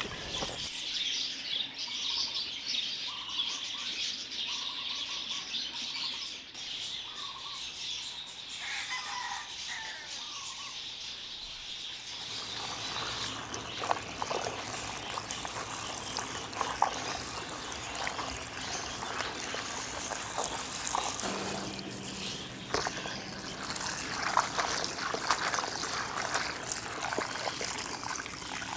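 Birds chirping over a steady high hiss of outdoor ambience. From about twelve seconds in, crisp clicks and rustles of water spinach leaves being cut in a plastic tub, with water from a garden hose trickling over the leaves near the end.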